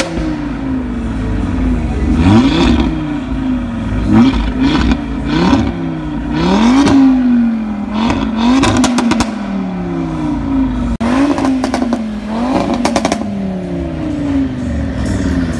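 Stage 2 tuned Audi RS3's turbocharged five-cylinder engine revved again and again through a Milltek exhaust, each blip rising sharply and then sinking back toward idle. Rapid popping and crackling on the overrun comes in bursts in the middle and again later on.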